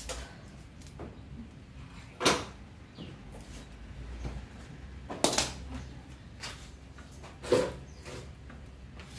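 Three short, sharp clacks, two to three seconds apart, from hands working parts loose on a mountain bike's handlebar.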